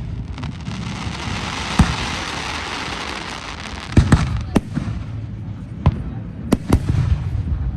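Aerial fireworks going off: about seven sharp bangs, several coming in quick succession between four and seven seconds in. A dense hiss fills the first half or so, and a low rumble runs underneath.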